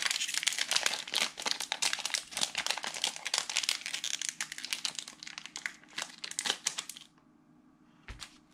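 Foil-plastic wrapper of a trading card pack crinkling as it is handled and worked open. It is a dense, continuous crackle that stops about seven seconds in.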